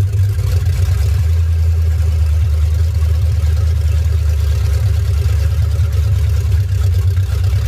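Ford 460 big-block V8 running steadily at a fast idle with a loud, even low rumble, on its newly fitted Holley Sniper throttle-body fuel injection in place of the carburettor.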